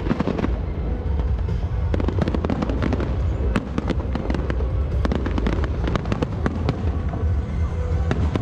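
Aerial fireworks display: many sharp bangs and crackles in quick, irregular succession from bursting shells, over a steady low rumble.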